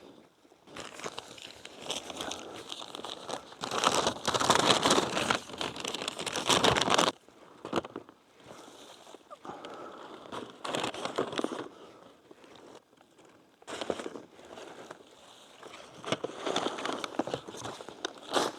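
Rustling and crackling of blueberry shrubs and dry forest undergrowth, in several bursts a few seconds long with quieter gaps between, as blueberries are picked by hand.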